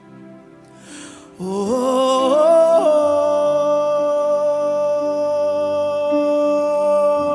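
Worship song: soft sustained accompaniment, then about a second and a half in a singer comes in on "Oh", sliding up in pitch and holding one long note.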